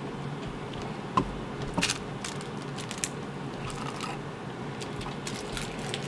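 A few light clicks and scratchy rustles, the sharpest about a second in and just under two seconds in, over a steady low room hum, as a cat noses around a cardboard box and a dangled toy.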